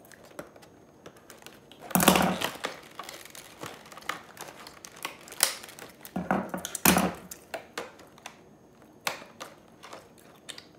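Clear plastic doll packaging crinkling and clicking as it is handled, with louder rustles about two seconds in and again around six to seven seconds.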